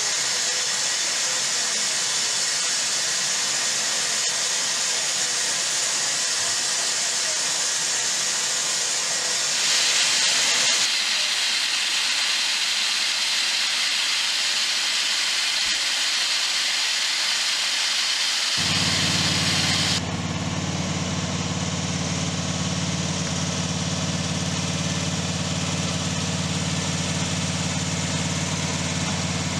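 Steady hiss of steam from a 1.5-inch scale live-steam locomotive, growing louder about ten seconds in. About two-thirds of the way through it gives way to a small engine idling with a steady hum.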